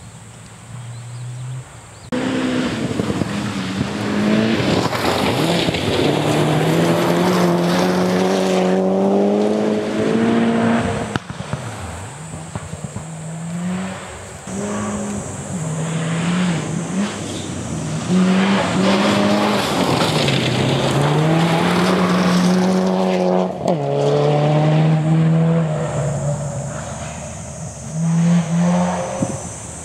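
Rally car engine revving hard on a gravel special stage. Its pitch climbs and then drops sharply again and again as the driver shifts gears, loudest as the car passes near the end.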